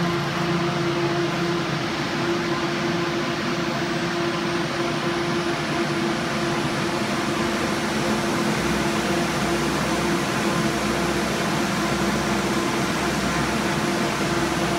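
Test stand's 12,000 rpm electric drive motor running and speeding up, belt-driving an unloaded GM one-wire alternator that is not yet charging: a steady whirring hum with a faint high whine rising early on. A low rumble joins about nine seconds in.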